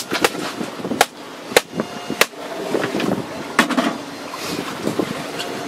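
Irregular sharp knocks and clicks of a landed salmon and its landing net, with its metal frame, being handled on a boat's deck, about half a dozen in all, the loudest a little after one second and near the middle, over the steady hiss of wind on the microphone.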